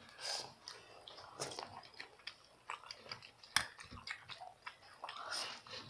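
Close-up mouth sounds of people eating shrimp and rice: soft chewing and lip smacks in short scattered bursts, with one sharp click about three and a half seconds in.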